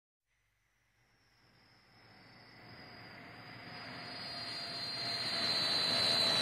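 Jet airliner engine noise, a recorded sound effect, fading in from silence about a second in and growing steadily louder: a rushing sound with a high whine that drifts slightly down in pitch.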